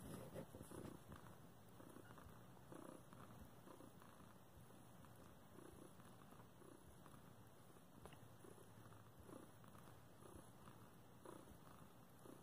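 Domestic cat purring faintly, the purr swelling and easing in a slow rhythm with its breathing.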